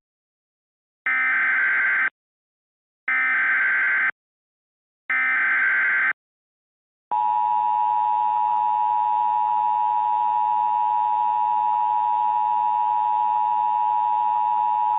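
Emergency Alert System SAME header: three one-second bursts of digital data screech, a second apart, followed from about seven seconds in by the steady alert attention tone, which holds for about eight seconds and cuts off sharply.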